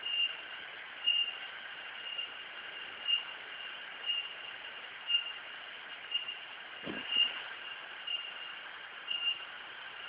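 Forest insects calling: a steady high drone with a short, regular chirp about once a second. A single brief low thump comes about seven seconds in.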